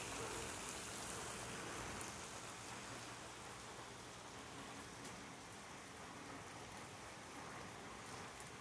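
Heavy rain falling on wet pavement, an even hiss that gradually gets a little quieter.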